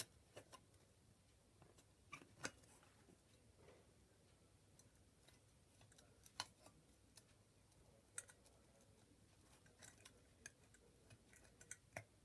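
Faint, irregular clicks and taps of a mosaic glass lamp's parts being fitted together by hand: the glass globe seated on the metal base and the metal top cap set on.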